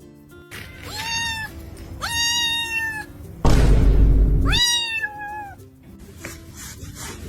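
A cat meowing three times, each meow drawn out and falling slightly in pitch. A loud, deep burst of noise about a second long comes between the second and third meow.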